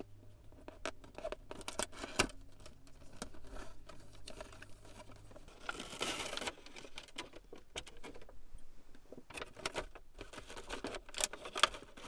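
Packaging being handled: a cardboard box opened and a clear plastic clamshell tray with a car socket adapter taken out and turned in the hands. Scattered clicks, taps and scrapes, with a louder crinkling rustle about six seconds in.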